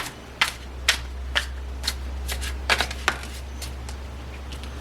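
A tarot deck being shuffled by hand: a run of crisp card snaps about twice a second, with a faint steady low hum underneath.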